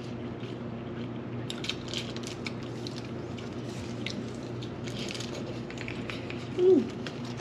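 People eating: soft chewing with small wet smacks and clicks, over a steady low hum in the room. A short closed-mouth "mm" comes near the end.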